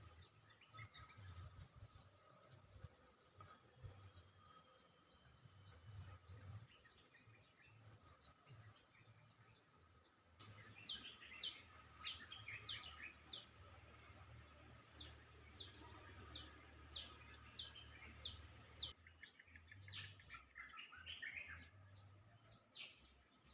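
Small birds chirping: many short, quickly falling chirps, faint at first and louder and more frequent from about ten seconds in, over a steady high insect-like hum and a low rumble.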